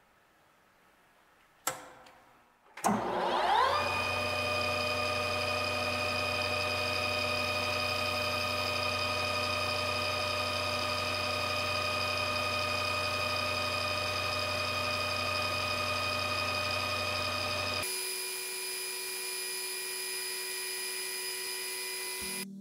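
Wasino LR-55A lathe starting up with a click, its whine rising quickly as the spindle comes up to speed, then running steadily while a long drill bit bores into the spinning workpiece. Near the end the low hum drops away and higher tones take over.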